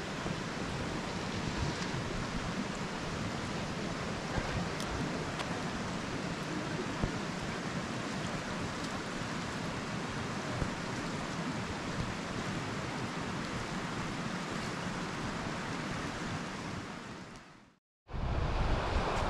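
Steady rush of a flowing forest river. Near the end it fades out to silence for a moment and comes back with wind buffeting the microphone.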